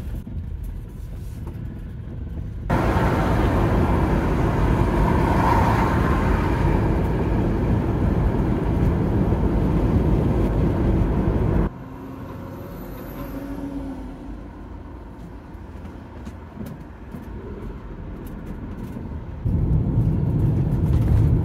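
Steady road and engine noise inside a van's cab while driving. It jumps abruptly in level a few times: louder and fuller during the faster stretch on the dual carriageway, quieter on the slower road.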